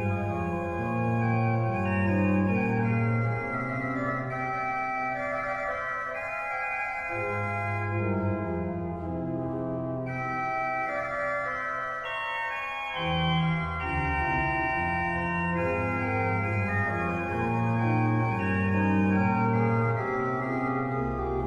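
Organ playing a slow classical piece in sustained chords over a moving bass line, with a deeper bass note coming in near the end.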